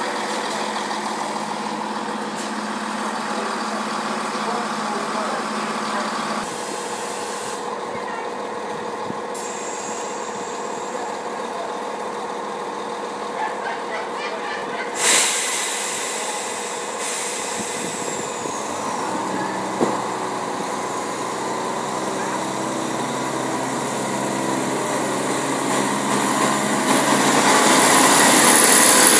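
Greater Anglia Class 170 Turbostar diesel multiple unit idling at the platform with a steady engine hum. About halfway through comes a sudden sharp hiss of released air that fades over a second or two. Near the end the engines get louder as the train starts to move off.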